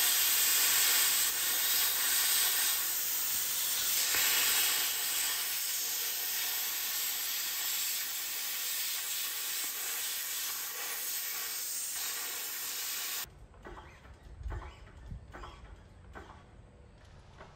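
Plasma cutter cutting through thick steel plate: a loud, steady hiss that stops abruptly about three-quarters of the way through. Faint scattered knocks follow.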